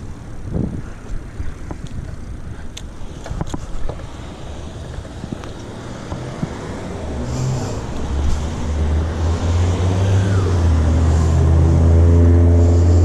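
Motor vehicle traffic on a city street: a vehicle's engine grows louder from about eight seconds in and is loudest near the end, over a rumble of wind and a few sharp clicks early on.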